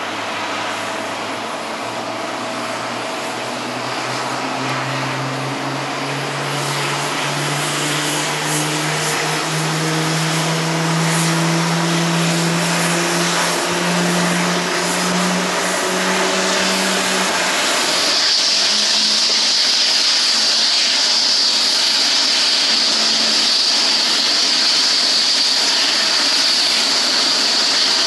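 Jet airliner engines: a low hum rising steadily in pitch under a loud rush of noise, joined about two-thirds in by a strong, steady high-pitched whine.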